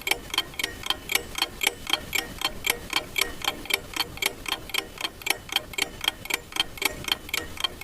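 Clock ticking in a steady, even rhythm of sharp ticks, about four a second.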